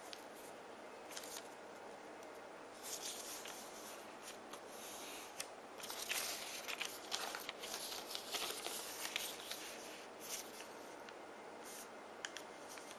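A sheet of origami paper being handled and folded by hand: soft rustling and crinkling as it is turned over and creased flat, busiest in the middle and then settling, over a faint steady hiss.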